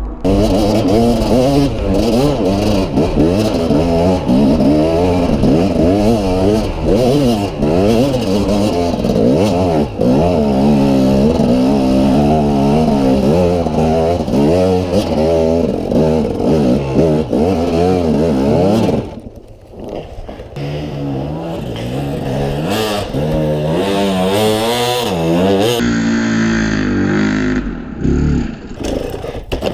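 KTM dirt bike engine revving hard, its pitch rising and falling quickly as the throttle is worked on a steep climb. About two-thirds of the way through it drops sharply, then picks up again at lower, uneven revs.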